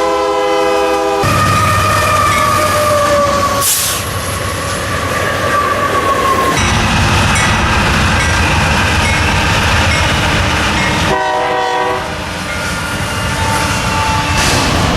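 Union Pacific freight train led by GE AC44CWCTE locomotives passing close by. A locomotive horn chord cuts off about a second in, then the loud, steady rumble of the train follows with faint falling tones over it. A short second horn blast sounds around eleven seconds in.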